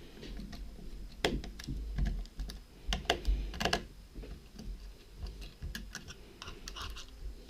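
Irregular small clicks and taps of a precision screwdriver and fingers on a camcorder's plastic casing while a tiny screw is undone, with a few sharper clicks about a second in and around three to four seconds in.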